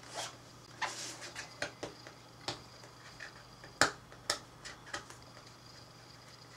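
Cardboard packaging being handled and opened by hand: irregular light taps, clicks and scrapes, the loudest about four seconds in, fewer after about five seconds.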